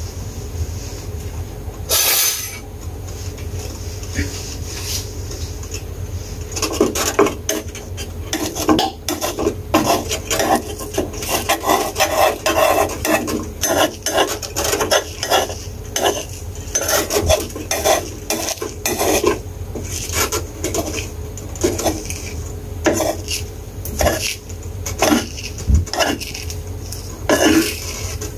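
A spoon scraping and knocking against a nonstick frying pan as an omelette is turned and folded: one clatter about two seconds in, then a busy run of short scrapes and taps from about six seconds on, over a steady low hum.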